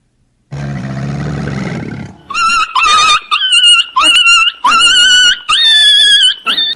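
An animal's low, rough grunting for about a second and a half, then a run of about six loud, high-pitched calls, each sliding sharply up at the start and then held.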